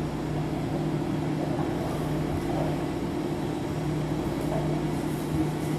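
Treadmill drive motor and belt running steadily in reverse with a constant hum, moving freely with nothing catching.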